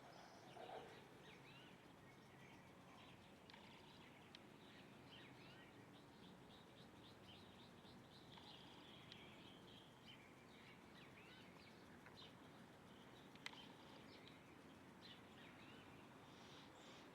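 Faint chirping of many small birds, short overlapping calls over a steady low background hiss and hum of the city. There is a single sharp click about two-thirds of the way through.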